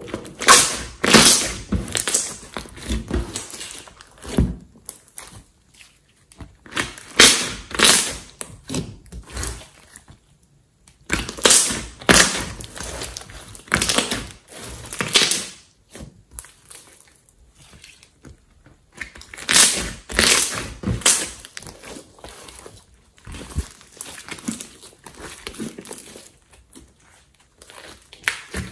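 Thick slime being stretched, squeezed and folded by hand, giving clusters of sticky popping and squelching. The clusters come in about five spells, separated by short lulls.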